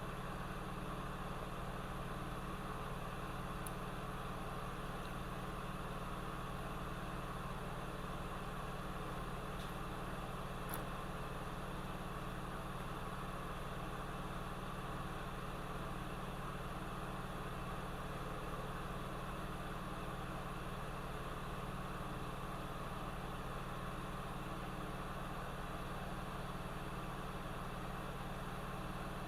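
Hot air rework station blowing steadily while desoldering a chip from a laptop motherboard, a constant hum with a hiss of air.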